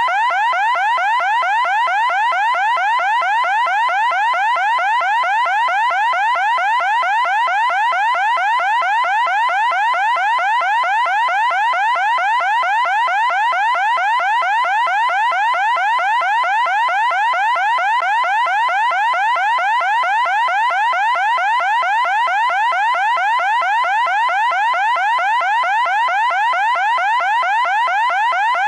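Loud electronic siren sounding continuously, one fast rising sweep repeated over and over without a break.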